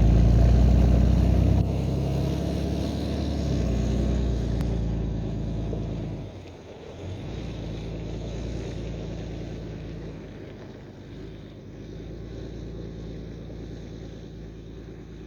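Cummins diesel engine running with a low, steady drone. It is loudest for the first second and a half, then drops, dips briefly around six seconds, and carries on more quietly.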